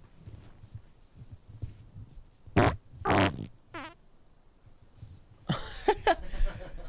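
A man farting: a short sharp blast about two and a half seconds in, then a longer rattling one with a brief squeak just after. A louder noisy burst follows near the end.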